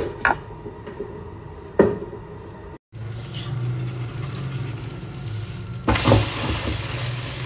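A couple of sharp knocks, then a vegetable omelette frying on a flat tawa griddle over a steady low hum. About six seconds in, the sizzle suddenly gets much louder as a spatula lifts and flips the omelette onto the hot pan.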